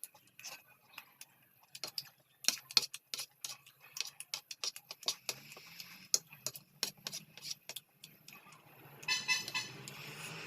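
Close-up eating sounds: irregular, rapid clicks and smacks of a mouth chewing food.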